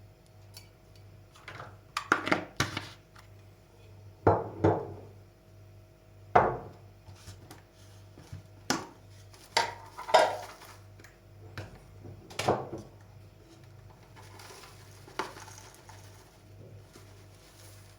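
Kitchen utensils clinking and knocking against dishware: about a dozen separate sharp clinks with short ringing tails, some in quick pairs, spread unevenly over the stretch.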